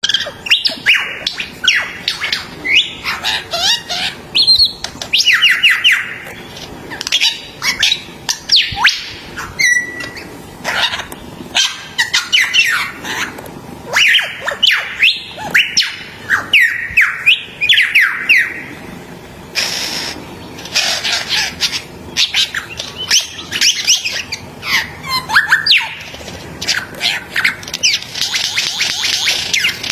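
A bird singing a fast, continuous run of sweeping whistles and chirps, with a buzzier burst of rapid notes near the end.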